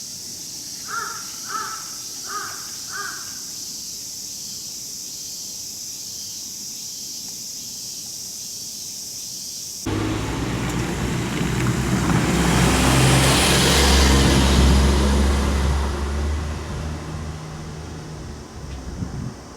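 Steady high drone of summer cicadas with a crow cawing four times about a second in. About ten seconds in, the sound cuts abruptly to a Seibu Ikebukuro Line train passing close by: a rumble with a low motor hum that swells, peaks and fades away.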